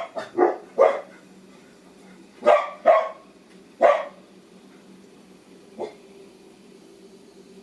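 A dog barks about five times in short bursts, then once faintly, over the steady hum of a running electric air compressor that is building pressure.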